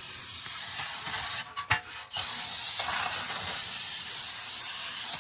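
Aerosol brake cleaner spraying in a steady hiss, with a brief break about a second and a half in.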